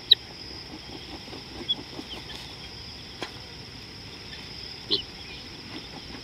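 A steady, high-pitched insect drone, with a few short bird chirps over it: one just after the start and one about five seconds in.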